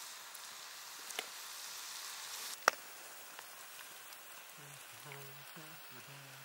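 Leeks and shimeji mushrooms sizzling softly in an aluminium mess tin over charcoal. A sharp click comes a little before halfway, and a man hums a few low notes near the end.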